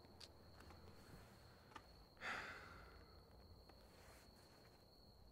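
A man's faint, breathy sigh about two seconds in, fading out over most of a second, over a faint steady high tone.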